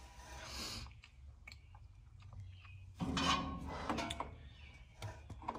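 Light metallic clinks and rattles with soft handling rustle, a few sharp clicks, and a louder cluster of clatter about three seconds in.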